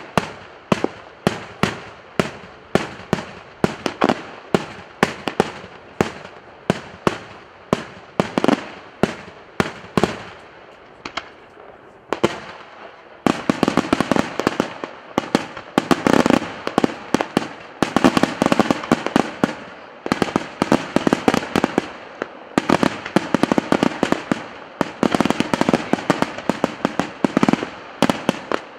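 Daytime aerial fireworks by the Di Candia brothers' firm going off in a steady string of sharp bangs, about two a second, that thickens about 13 seconds in into a dense, rapid rattle of reports.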